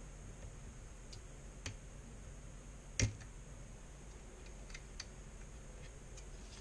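Scattered light clicks and ticks of a small tool and plastic parts as a graphics card's fan connector is worked loose, with one louder click about three seconds in.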